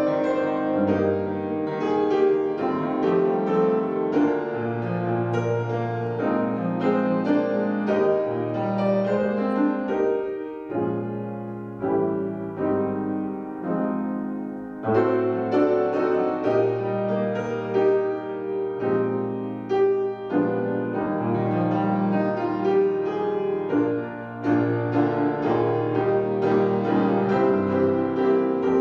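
Piano or keyboard playing slow sustained chords with bass notes, a short pause about ten seconds in.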